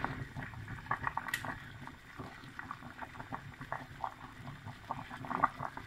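Stockpot of meat and chickpeas at a rolling boil, bubbling and popping irregularly under a thick layer of foam as the scum is skimmed off with a wooden spoon. One sharp click sounds about a second and a half in.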